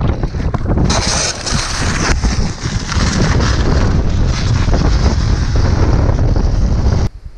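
Strong winter storm wind blasting over the microphone: a loud, rough rushing with a heavy low rumble that buffets on and off, and cuts off suddenly near the end.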